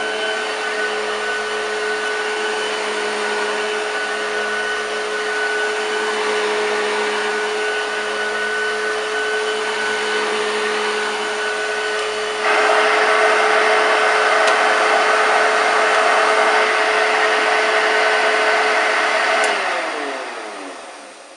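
Hoover Junior U1016 upright vacuum cleaner running with a steady motor hum, turning suddenly louder and brighter about two-thirds of the way in. Near the end it is switched off and the motor winds down with falling pitch.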